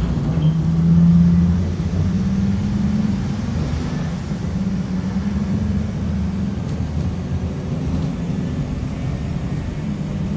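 Engine of a 2018 Blue Bird Vision school bus, heard from inside the bus, rising under load over the first couple of seconds as the bus gets moving, then running steadily as it drives on.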